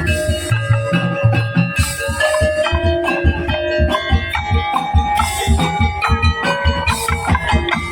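Tongtek percussion ensemble playing: fast, dense drum beats under a ringing melody on pitched, bell-like percussion.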